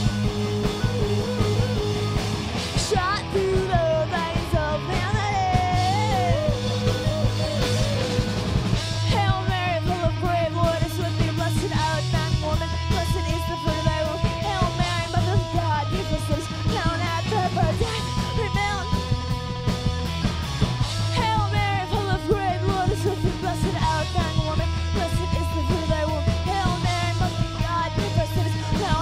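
Punk rock band playing live: a woman singing lead over electric bass and drums.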